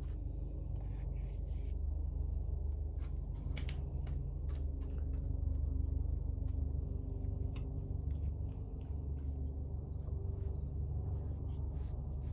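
A steady low rumble, with faint scattered ticks and scrapes of a paintbrush dabbing wet Satanite refractory slurry onto a forge's ceramic-wool lining.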